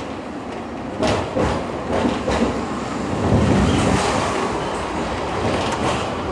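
Hong Kong double-decker electric tram running along its street track, heard from on board: a steady rumble and rattle with irregular clacks from the wheels on the rails.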